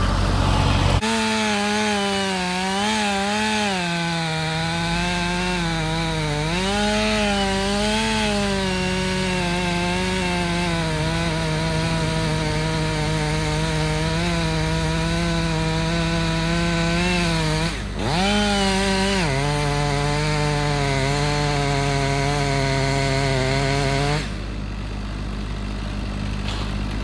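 Two-stroke chainsaw running at high revs and cutting wood, its pitch sagging and wavering under load. It drops off and revs back up briefly about two-thirds of the way through, then stops about three seconds before the end, leaving a low engine drone.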